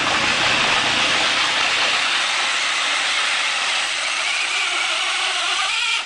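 Radio-controlled 2WD pulling truck running flat out while dragging a weighted pulling sled over a dirt track: a steady, loud, hissing whir that eases slightly near the end.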